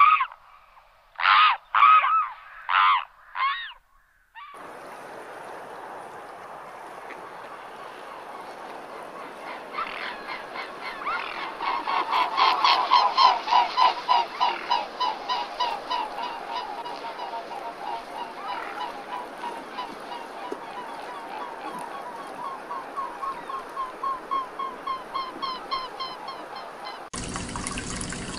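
Waterfowl calling: four loud honks in the first few seconds, then a noisy flock background with a long run of rapid repeated calls, about four a second, loudest around the middle. Near the end the sound switches abruptly to something steadier.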